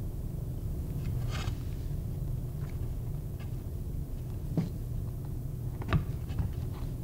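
Steady low room rumble, with a brief rustle and a few faint clicks from hands working stringing through the holes of a wet elk-hide drum cover.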